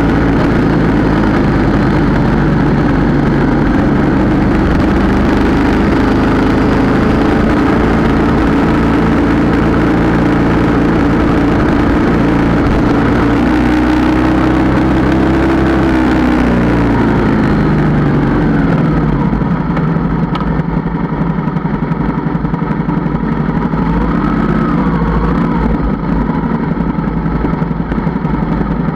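Yamaha Tracer 700's 689 cc parallel-twin engine running as the bike is ridden. The engine note falls away about two-thirds of the way through as the bike slows, and it runs quieter from then on.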